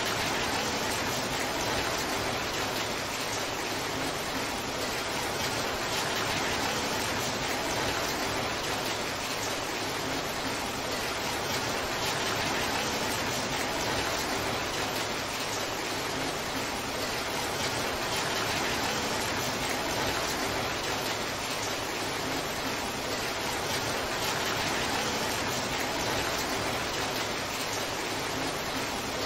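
Torrential downpour: heavy rain falling in an even, steady hiss.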